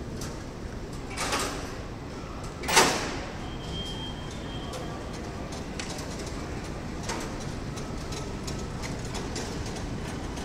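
Airport terminal concourse ambience: a steady hall noise with faint voices and light clicking and rattling from rolling suitcases and footsteps on the tiled floor. Two short hissing swooshes come about a second in and just under three seconds in, the second the loudest.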